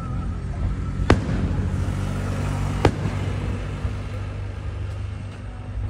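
Fireworks going off: two sharp bangs about a second and three seconds in, with a weaker one at the very end, over a steady low rumble.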